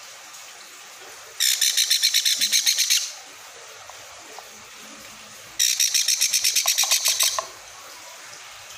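Baby sun conure chick giving food-begging calls: two bouts of rapid, high-pitched chirping, each lasting about a second and a half, the second starting a few seconds after the first ends.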